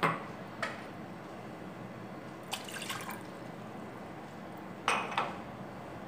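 Water drops falling into a white enamel pan of water: about six short plinks, irregularly spaced and some in pairs, over a faint steady background hiss.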